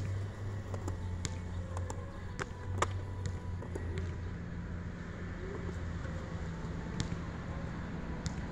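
Rain ambience: a steady low rumble with scattered sharp ticks of raindrops, and a bird calling faintly a couple of times.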